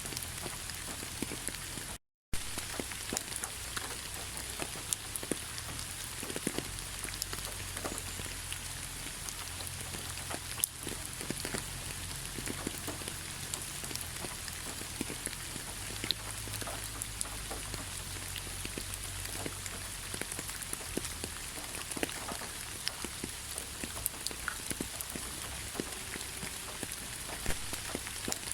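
Heavy rain falling steadily: a dense hiss with many separate drops striking close by and a low rumble underneath. The sound cuts out completely for a split second about two seconds in.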